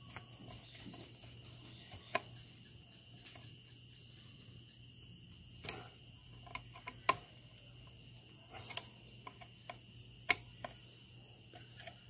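Several sharp, separate clicks of a screwdriver working the brass terminal screws of a remote-control switch box as the wires are tightened, over a faint steady high-pitched background chirr.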